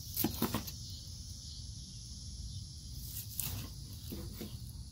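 Long slicing knife cutting through a smoked beef roast and touching the wooden cutting board: a few short scraping strokes near the start and again about three to four seconds in.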